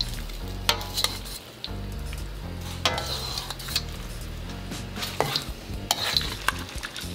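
Metal ladle stirring and tossing spaghetti, chicken and vegetables in a sizzling steel wok as the sauce thickens. The ladle clinks sharply against the pan several times.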